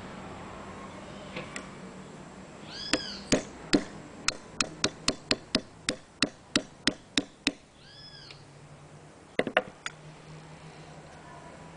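Small hammer tapping a socket used as a drift on a Citroën 3CV brake master cylinder: about fifteen sharp metal taps at roughly three a second, then a few more near the end. Twice, a short high call rises and falls in pitch.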